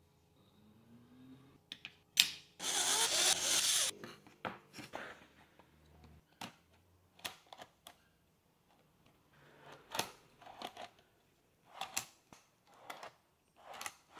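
Short knocks, clicks and sliding noises of plywood parts and telescopic metal drawer slides being handled and moved on a workbench. About three seconds in there is one louder burst of noise lasting just over a second.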